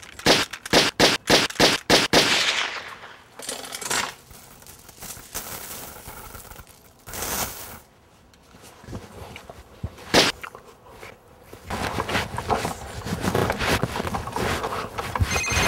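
A rapid string of about ten gunshots, roughly four a second, over the first two seconds, then quieter scuffling noise with one more single bang about ten seconds in.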